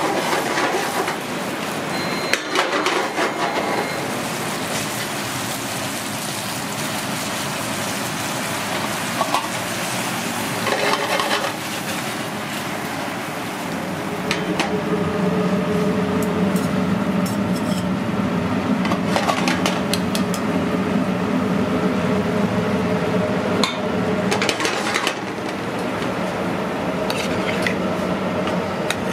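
Mushrooms sizzling in sauce in a stainless steel sauté pan over a gas burner, with the pan rattling on the grate as it is shaken and a metal spoon clinking and scraping against it.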